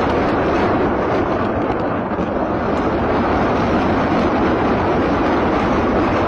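A battery of truck-mounted multiple rocket launchers firing a salvo: rockets leave in rapid succession, merging into one continuous loud rushing noise with a slight dip about two seconds in.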